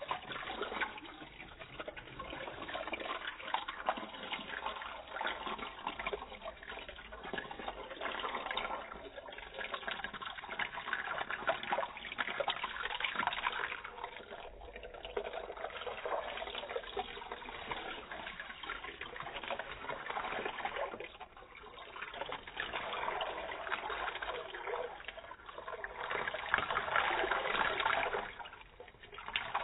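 A stream of water pouring onto plastic toy train cars and splashing into shallow water in a paddling pool, rinsing paint off them. The flow wavers in strength and eases off briefly twice, about two-thirds of the way in and again near the end.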